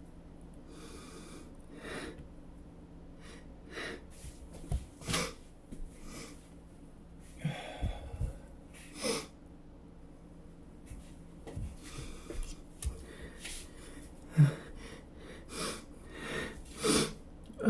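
A man sniffing, snorting and breathing hard in short bursts, with sneezes, the loudest near the end, set off by chhinkni, a herbal snuff taken to make one sneeze.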